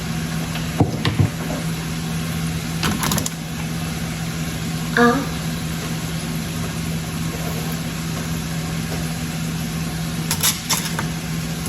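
A kitchen appliance's motor hums steadily at one low pitch, with an even hiss. A few light clicks and knocks come about a second in, about three seconds in and near the end.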